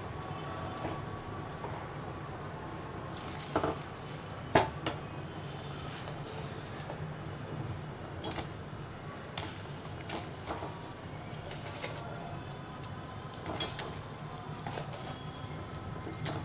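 Tomato-onion curry gravy bubbling at a boil in a steel pot, a steady simmering hiss, with about half a dozen short sharp knocks as fried cabbage koftas are put into the pot.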